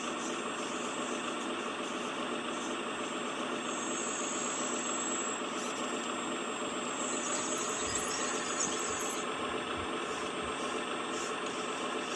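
Diesel engine of a heavy earthmoving machine running steadily, with a faint high whine twice near the middle.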